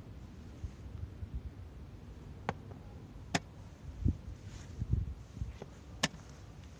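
Chess pieces being set down on the board and chess clock buttons being pressed during fast blitz play: a few sharp clicks, the loudest about six seconds in, and some dull thumps, over a low background rumble.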